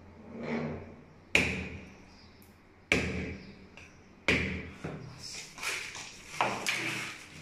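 A hammer striking the end of a screwdriver whose tip is held against glazed ceramic wall tile: three sharp metallic taps about a second and a half apart, each with a short ringing. Smaller knocks and rustling follow near the end.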